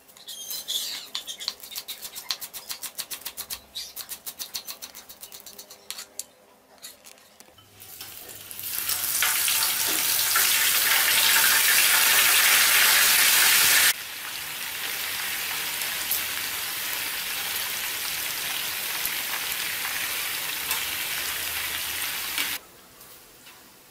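Cleaver chopping greens on a wooden cutting board in quick repeated strokes, then pieces of meat sizzling loudly in a hot frying pan. About fourteen seconds in, the sizzle drops suddenly to a steadier, quieter frying, which stops shortly before the end.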